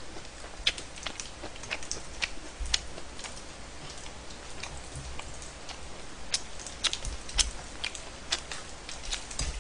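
Pork belly sizzling in a frying pan, the fat crackling with irregular sharp pops over a soft hiss.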